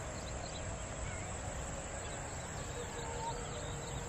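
Outdoor ambience: a steady low rumble of wind on the microphone, with faint scattered bird chirps and short whistles.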